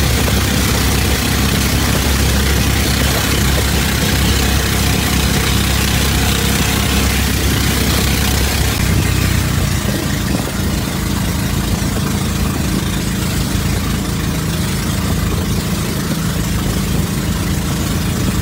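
The engine of a bangka outrigger boat runs steadily under way, over a rushing hiss of wind and water. About nine seconds in, the engine note changes and its deepest part drops away, then it runs on steadily.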